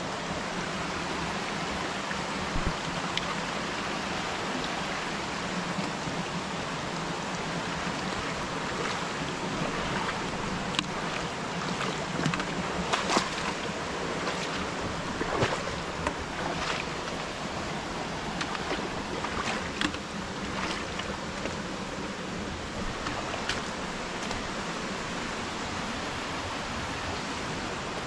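Waterfall water rushing steadily over rock, with scattered light clicks and knocks in the middle.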